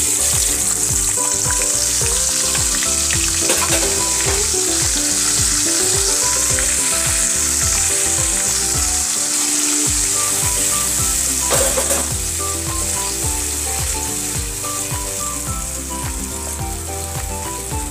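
Wet onion-garlic-ginger spice paste hits hot oil in a nonstick kadai and starts sizzling loudly the instant it lands. It keeps frying with a steady sizzle as it is stirred with a silicone spatula, easing a little in the second half.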